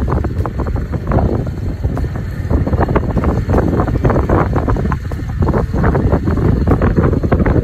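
Loud, gusty wind rumble on the microphone as it rides along in a moving vehicle.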